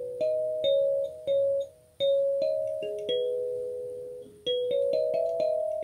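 Gecko kalimba played with the thumbs: single notes in a slow melody, each tine ringing on and fading, with short pauses about two seconds in and again just after four seconds.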